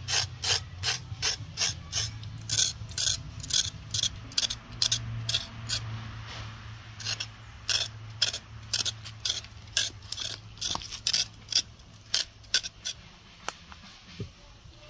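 A large kitchen knife scraping the skin off a raw carrot in quick rasping strokes, about three a second, that grow sparser and stop near the end.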